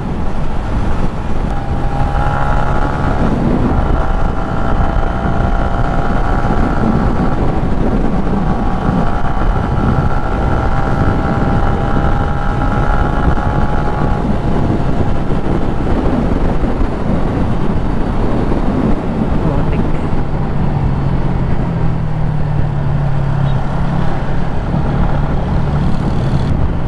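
Motorcycle running flat out at highway speed, up to about 140 km/h, with a steady rush of wind and road noise. A higher engine note holds through the first half; later a lower note climbs toward the end.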